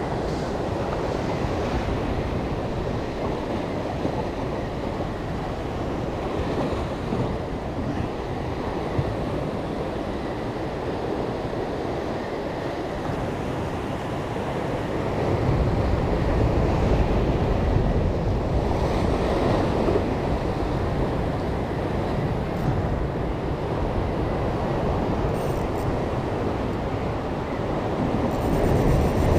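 Ocean surf breaking and washing over rocks, with wind buffeting the microphone; it grows louder, with a heavier low rumble, about halfway through.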